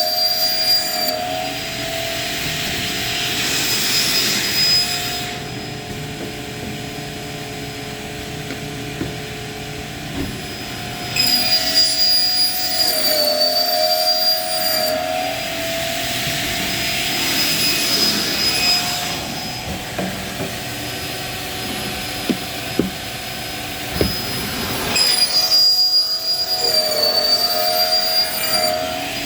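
Circular saw on a PVC pipe cutting machine running and cutting pipe in repeated cycles: its steady whine dips in pitch about every 13 seconds, with stretches of rushing cutting noise between.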